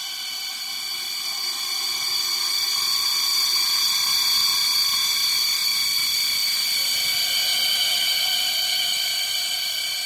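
Cold, eerie synthesized ambience: a drone of several high, steady tones layered together, swelling in loudness over the first half and easing off slightly near the end.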